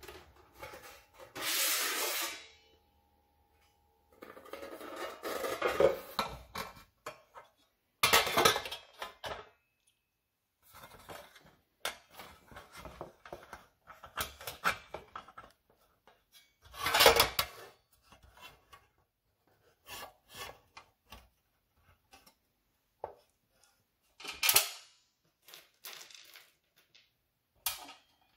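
Thin corrugated galvanized steel panels and edge strips of a raised garden bed kit being handled and fitted together: separate metallic clanks, rattles and rubbing scrapes with pauses between them, the loudest two brief clatters about eight and seventeen seconds in.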